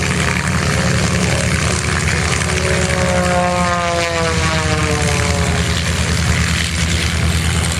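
P-51 Mustang's V-12 piston engine running steadily with its propeller turning. About three seconds in, a higher tone slides down in pitch for a couple of seconds.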